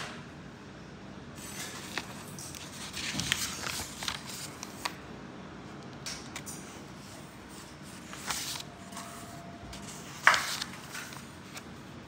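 Paper pages of a booklet being turned and handled: scattered rustles and crackles, the loudest a sharp paper crackle about ten seconds in.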